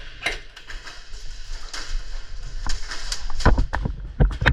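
Scattered sharp clicks and knocks, with several heavy thumps in the last second and a half.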